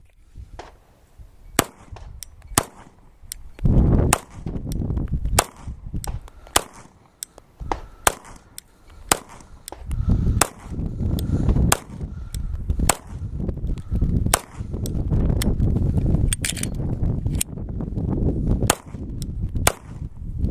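Semi-automatic Polymer80 (P80) Glock-pattern pistol firing a rapid string of hand-loaded bottleneck cartridges, roughly two shots a second with brief pauses. Wind rumbles on the microphone between shots.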